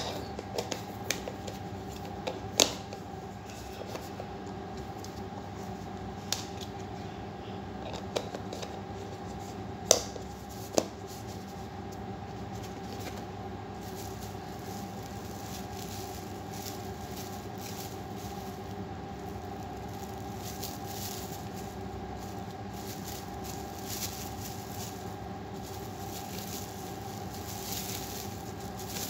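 Handling noise from unpacking a stainless steel self-stirring mug and its cardboard box: a few sharp knocks and clicks in the first dozen seconds, then plastic-bag rustling near the end, over a steady background hum.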